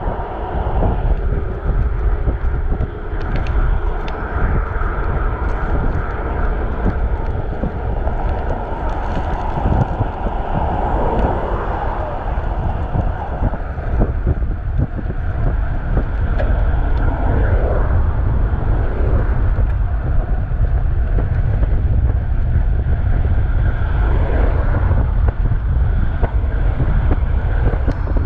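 Wind rushing over a chest-mounted GoPro's microphone on a moving bicycle, a steady low rumble. Motor traffic passes alongside, swelling and fading a few times.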